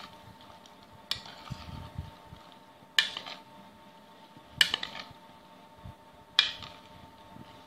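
A metal spoon stirring cut okra coated in gram flour and spices in a bowl, with a soft scraping and rustle and four sharp clinks of the spoon against the bowl.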